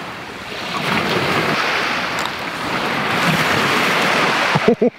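Lake Superior waves washing onto the shore, a steady rushing noise that swells slightly about a second in and cuts off suddenly near the end.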